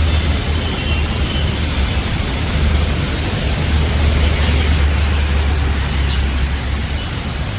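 Steady hiss of heavy rain over a strong, steady low rumble.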